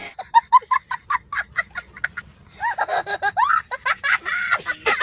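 A young boy laughing hysterically: quick high-pitched bursts of laughter in rapid succession, then longer squealing laughs that rise and fall in pitch.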